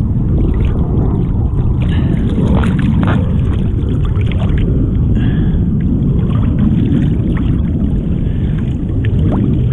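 Choppy ocean water sloshing around a camera held at the surface: a heavy low rumble with a few brief splashes.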